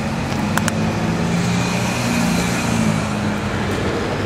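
Steady car engine and road noise of a car driving along, with two short clicks about half a second in.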